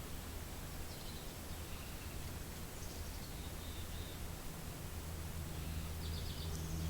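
Steady low wind rumble and hiss, with a few faint bird calls over it: a chirp about a second in, a falling call around three to four seconds, and a quick run of chirps near the end.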